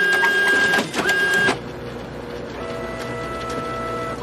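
Electronic intro music for a channel intro card: two loud synthesized tone blasts about half a second apart, then quieter held electronic tones that step up partway through.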